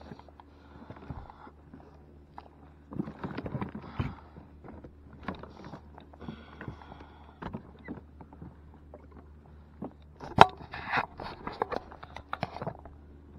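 Scattered knocks, clicks and rustling from gear being handled, over a steady low hum. A sharp knock about ten seconds in is the loudest, followed by a busier patch of rustling.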